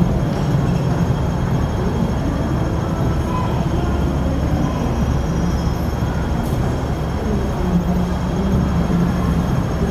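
Hong Kong double-decker electric tram running: a steady low rumble with a hum from the wheels and running gear on the rails.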